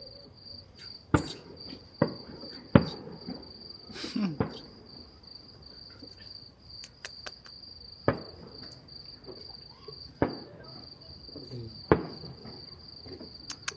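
Distant fireworks going off: about seven sharp, irregularly spaced bangs, some followed by a rumbling echo, over a steady high insect trill.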